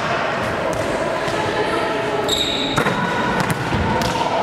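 Volleyballs being hit and bouncing on a sports-hall floor: a series of separate sharp slaps and thuds, with voices in the background and a brief high squeak about halfway through.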